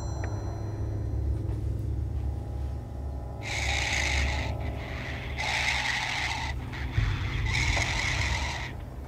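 Heavy breathing from an anonymous caller on the phone line: three long, hissy breaths of about a second each, the first about three seconds in, over a low steady drone.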